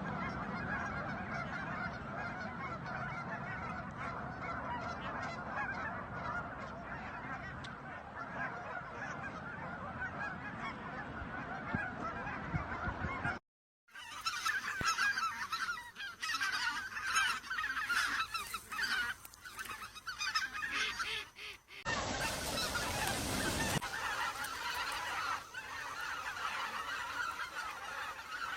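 A flock of wild geese honking: at first a dense, continuous chorus of many birds, then, after a short break about halfway through, sparser overlapping calls from a different recording. About two-thirds of the way in there is a burst of rushing noise lasting about two seconds.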